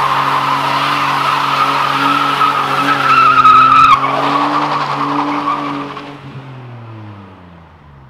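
BMW 535i's straight-six held at high revs while the rear tyres spin and squeal in a burnout, loudest a few seconds in. Over the last couple of seconds the engine note drops and the squeal fades as the car rolls away.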